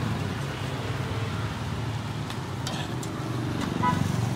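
Steady low rumble of a busy roadside: street traffic and the stall's open gas burners under the woks, with a couple of light clinks about halfway through.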